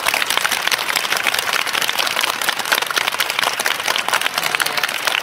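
Crowd applauding: a steady, dense patter of many hands clapping.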